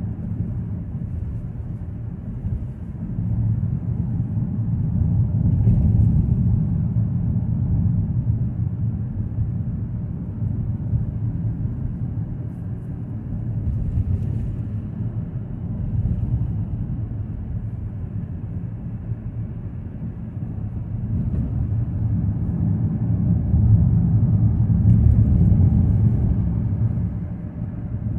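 Road and tyre noise heard from inside a moving car: a steady low rumble that swells louder about six seconds in and again near the end.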